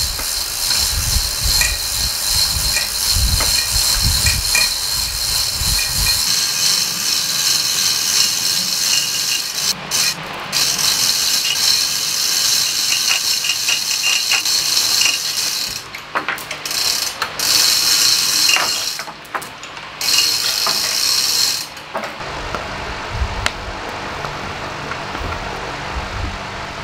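Manual chain hoist being hauled by its hand chain to lift a heavy timber boat frame: the chain clatters through the hoist and the pawl ratchets, in runs broken by short pauses, stopping about 22 seconds in.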